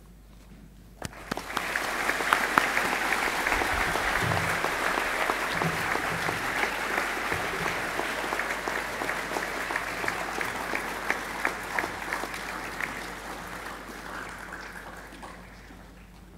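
Audience applauding, starting about a second and a half in and dying away near the end.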